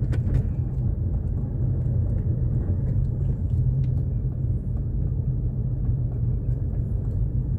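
Steady low rumble of a moving car's engine and tyres on a tarmac road, heard from inside the cabin, with a few faint clicks near the start.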